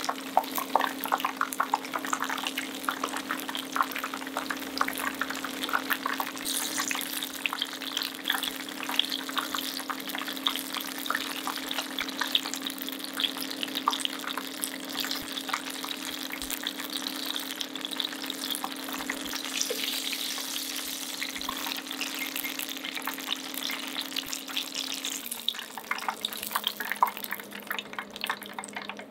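Tempura deep-frying in a pan of oil: a dense, steady crackle and sizzle of bubbling batter, thinning a little near the end. A steady low hum runs underneath and drops slightly in pitch about 25 seconds in.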